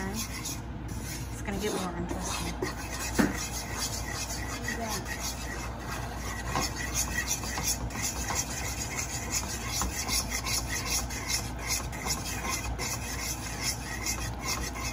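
Metal fork scraping and stirring a thick flour roux against the bottom and sides of a stainless pot, a continuous rapid rasping as the roux is kept moving so it browns without burning. One sharper knock about three seconds in.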